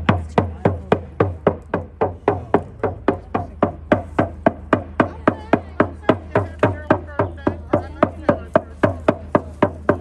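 Hand-held frame drum struck with a beater in a steady, even beat of about four strokes a second.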